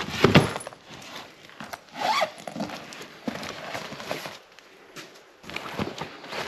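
Knocks and bumps from a large soft suitcase being moved and handled, with the rasp of its zipper being pulled.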